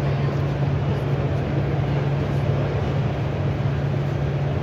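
Steady background noise of a busy exhibition hall: a constant low hum under an even rush of noise, with no distinct knocks or voices standing out.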